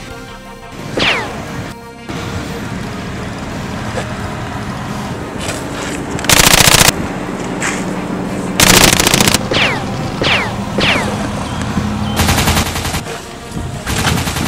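Three short bursts of automatic gunfire from a film soundtrack, each under a second, with a few short falling whistles like bullet ricochets between them. Background music runs underneath.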